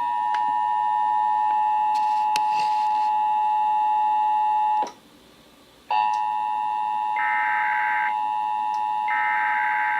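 Emergency Alert System attention signal: the steady two-tone alarm of 853 and 960 Hz sounding together, marking the start of a required monthly test. It cuts out for about a second near the middle and then resumes, and twice in the second half a short burst of higher-pitched digital data tones sounds over it.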